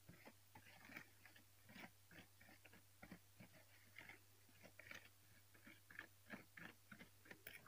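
Faint, irregular scraping and clicking of a metal spoon stirring a thick, gritty paste of instant coffee, sugar and oil in a plastic tray, working the sugar in until it dissolves.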